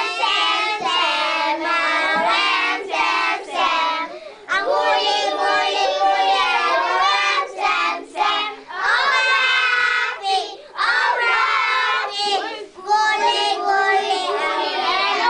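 A class of young children singing a song together, phrase after phrase with short breaks between.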